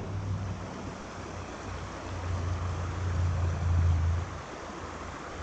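Stream water rushing steadily, with a low rumble that swells and is loudest from about two to four seconds in.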